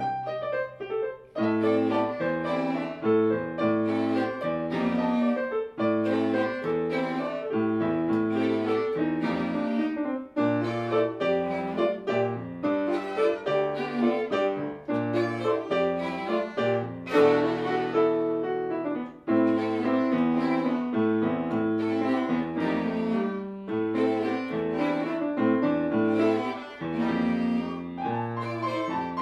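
Chamber music for piano, violins and cello: a grand piano and bowed strings playing together.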